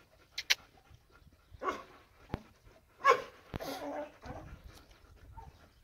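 A dog gives a few short barks, the loudest about three seconds in, with a few faint clicks like a metal food bowl being knocked.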